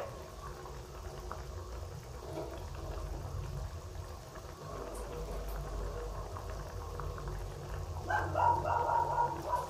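Coconut-milk sauce with shrimp and chicken liver simmering in a wok, bubbling softly over a low steady hum. A short, faint pitched sound rises near the end.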